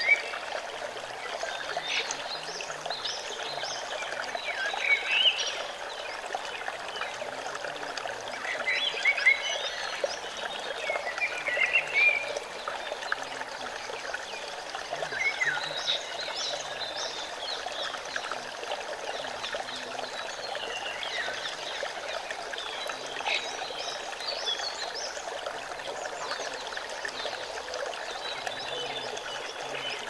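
Small rocky forest stream pouring over a boulder in a steady rush of water. Brief high chirping calls break in every few seconds, most often in the first half.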